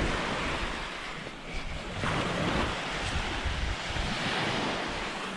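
Small waves breaking and washing onto a sandy Baltic Sea shore, with wind buffeting the microphone. The surf swells at the start and again about two seconds in.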